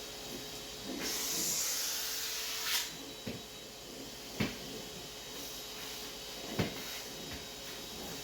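Kitchen cleaning handling sounds: a hiss lasting about two seconds, ending in a click, then a few separate knocks like items or cupboard doors being set down or shut.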